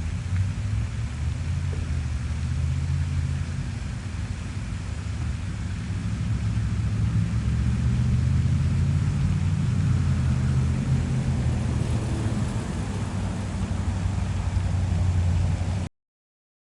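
A steady low rumble that cuts off suddenly near the end.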